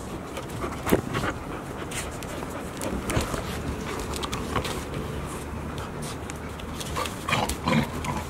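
Golden retriever puppies playing and wrestling, panting, with scattered short clicks and scuffles. There is a sharp knock about a second in and a burst of louder scuffling near the end.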